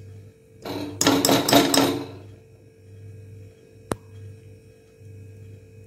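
Metal spoon knocking against the rim of an aluminium pressure cooker, a quick run of ringing clanks about a second in while ghee is added to the oil, then one sharp tick near four seconds.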